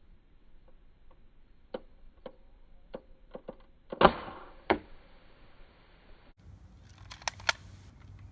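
A scattered series of sharp clicks and knocks, the loudest two coming close together about four seconds in.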